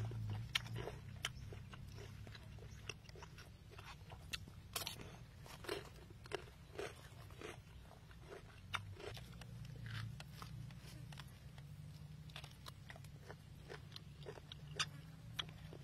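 A person chewing food close to the microphone, with irregular crunches and wet mouth clicks several times a second over a low steady hum.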